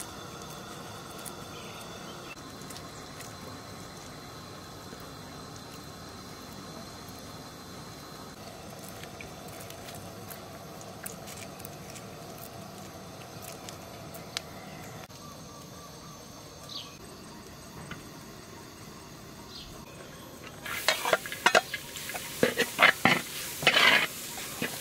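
Food frying in a pan: a steady sizzling hiss with scattered small pops. About four seconds before the end it gives way to a run of loud, irregular short noises.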